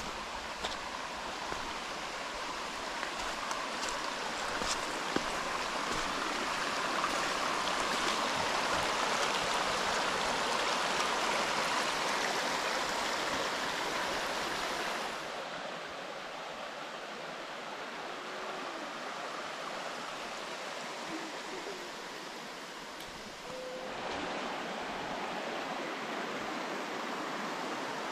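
Shallow mountain creek running over rocks: a steady rush of water that drops suddenly in level about halfway through and steps back up near the end.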